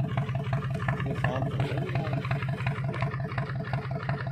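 Engine of a fishing launch running steadily at idle: a low hum with an even, rapid knock of about six or seven beats a second.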